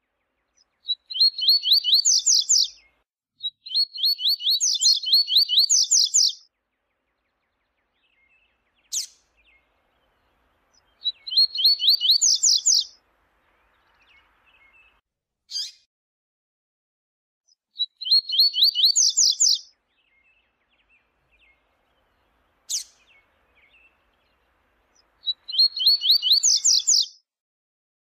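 Double-collared seedeater (coleiro) singing. It gives five short, high song phrases of fast repeated notes, each about two to three seconds long, separated by pauses in which three single sharp notes sound.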